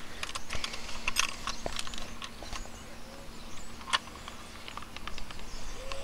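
Irregular clicks, taps and rustles of a fish weigh sling's straps and metal clip being hooked onto hand-held digital fishing scales. They are busiest in the first second, with a sharp click about four seconds in.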